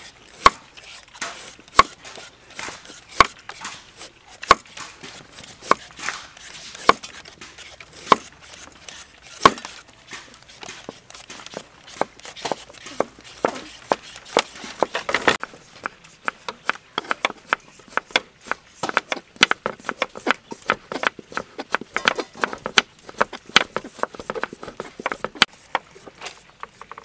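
Cleaver chopping carrot on a wooden chopping block. Single heavy chops come about a second apart at first. From about ten seconds in they give way to quick, rapid chopping, several strokes a second, as the carrot is sliced and cut into thin strips.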